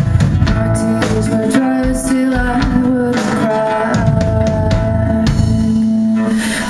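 A woman singing live with an indie rock band: acoustic guitar, electric guitar and drum kit, with long held vocal notes over the drum beat.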